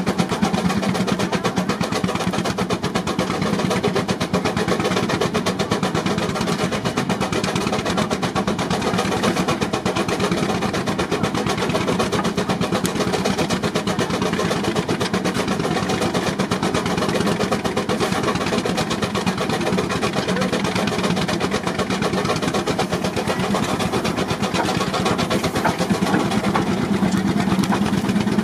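Baker 23-90 Uniflow steam traction engine running belted to a Prony brake dynamometer, its exhaust a rapid, even beat that holds steady, the engine working under load in a horsepower test.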